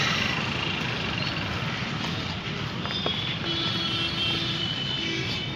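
Steady outdoor street noise with no single event standing out. A faint held tone comes in about three and a half seconds in.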